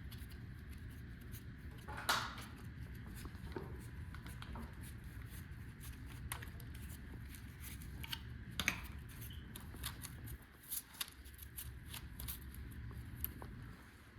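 Irregular small clicks and clinks over a low steady hum, with sharper knocks about two seconds in and near nine seconds; the hum drops away about ten seconds in.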